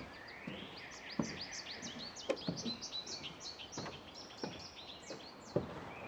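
A songbird singing one long song of rapid, varied high chirping notes that stops about a second before the end, over a person's footsteps.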